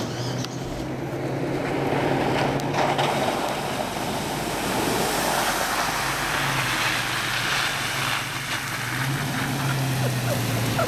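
Hummer H2's V8 engine running steadily at low speed as the truck drives along a muddy trail, tyres rolling and splashing through wet mud. It grows louder over the first couple of seconds as the truck comes close, then passes.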